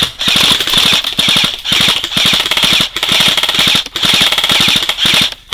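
Airsoft gun firing loudly on full auto, a rapid even clatter of shots in several bursts of about a second each with short breaks between, a high whine running through each burst.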